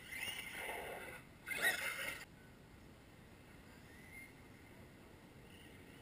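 Electric radio-controlled cars passing close by at speed, two quick passes just over a second apart, each a short whining rush that comes and goes; the second is the louder.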